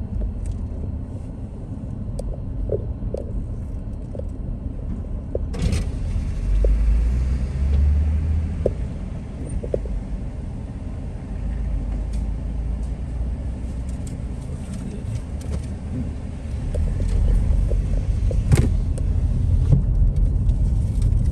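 Car engine and tyre rumble heard from inside the cabin, driving off through a toll plaza, with the rumble swelling louder twice. A sharp knock about six seconds in and another near the end.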